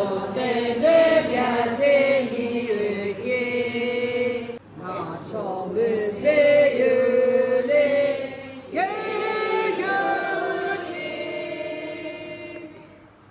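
Group of women singing together in unison, slow phrases of long held notes. The singing breaks off briefly about four and a half seconds in and again near nine seconds, and fades out near the end.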